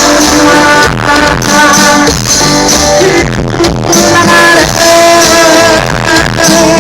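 Loud live grupera band music, a dense instrumental passage with held melodic notes over bass and drums.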